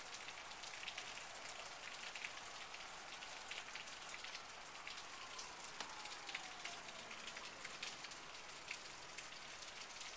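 Steady rain falling, an even hiss dotted with the ticks of individual drops.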